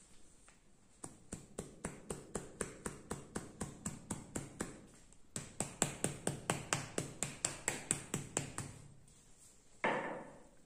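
A bristle hand brush patted rhythmically against a man's neck and shoulders in a massage: two runs of quick, even taps, the second faster and louder, about four to five a second. A short, different sound follows near the end.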